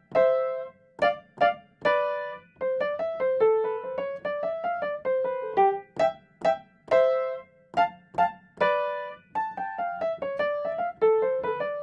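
Background music: a keyboard with a piano tone playing a simple melody of separate notes, each struck and fading, some spaced apart and some in quicker runs.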